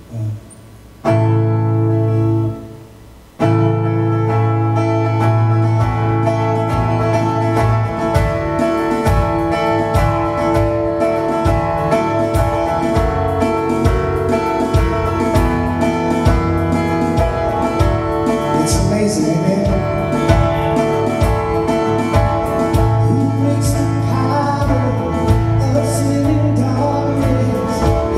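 Live praise band of acoustic guitars, bass and drums starting a song: a chord rings out about a second in and fades, then the full band comes in a couple of seconds later and plays on steadily with a drum beat.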